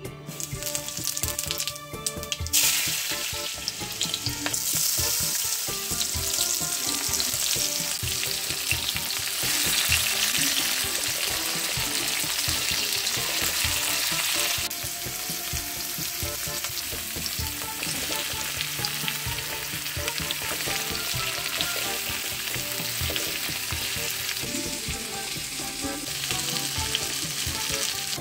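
Sliced spiny gourd (kantola) with tomato, chilli, onion and potato sizzling in hot oil in a kadai, stirred with a wooden spatula. The sizzle flares up loud about two and a half seconds in and eases a little about halfway through.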